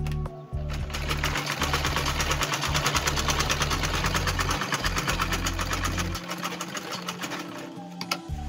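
Treadle sewing machine stitching through leather, a fast, even run of needle strokes that starts about a second in and stops near the end.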